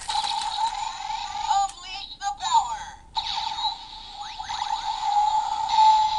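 Power Rangers Dino Charge Morpher toy playing its electronic music and sound effects through its small built-in speaker, triggered by the Black Ranger's Dino Charger inserted in it. The sound is continuous with sweeping pitches and a brief break about halfway.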